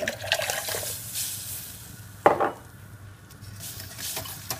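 Soy milk poured into a hot roux of melted sunflower spread and flour in a stainless steel pot, sizzling and hissing. A wire whisk then stirs it, with one sharp clank against the pot about two seconds in and light clinks near the end.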